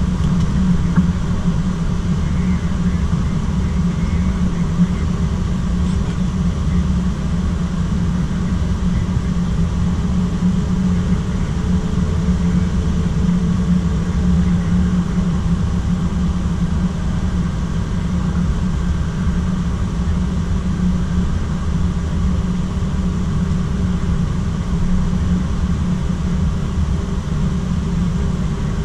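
Steady cockpit noise of an airliner taxiing slowly at idle thrust: a continuous low rumble with a faint steady hum above it.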